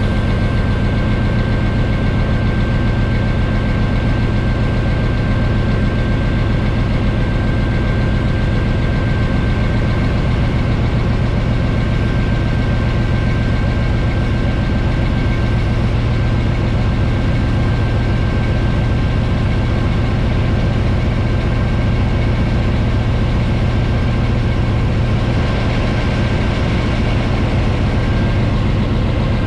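Diesel-electric locomotive engine running steadily as the train moves, heard close up from a camera mounted on the locomotive's side, with a thin steady high whine over the deep engine rumble.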